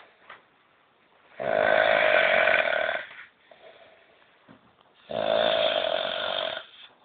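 A person snoring loudly: two long snores, each lasting about a second and a half, the second starting about three and a half seconds after the first.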